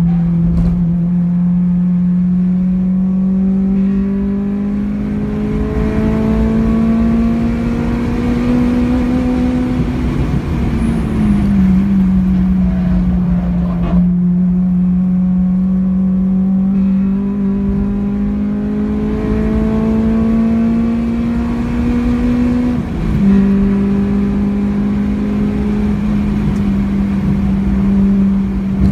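Honda Civic Type R EP3's 2.0-litre four-cylinder engine, heard from inside the cabin at track speed over a steady low drone. Revs climb for about ten seconds and fall away, climb again, then drop suddenly about 23 seconds in with an upshift.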